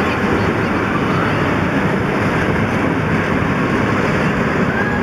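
Steady rushing noise of wind buffeting the microphone while riding a swinging balloon-basket ride.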